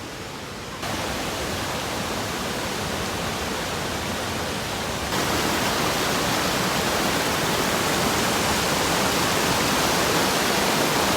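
Steady rush of fast-flowing water from the river and waterfall, with no distinct events, jumping louder about a second in and again about five seconds in.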